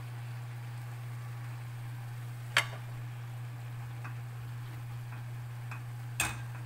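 Metal tongs clinking against a metal cooking pot twice, about three and a half seconds apart, with a few faint ticks between, as water spinach is tossed. A steady low hum runs underneath.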